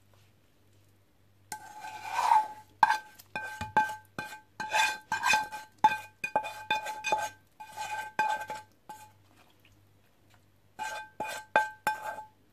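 A plastic spatula scraping and knocking chili oil out of a metal frying pan into a stockpot, the metal ringing briefly at each knock. The knocks start about a second and a half in, come in quick runs, pause for about two seconds near the end, then come again.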